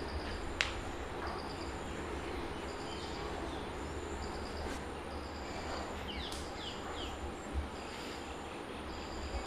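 Outdoor background over a steady low rumble, with short high chirps repeating every second or two and a sharp click about half a second in.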